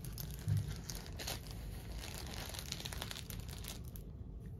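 Plastic-covered diamond painting canvas crinkling as it is handled and shifted, with scattered light clicks and a soft low bump about half a second in.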